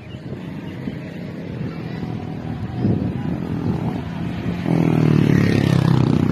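A motor vehicle passing on the road: engine noise grows about three seconds in and is loudest and steady over the last second and a half.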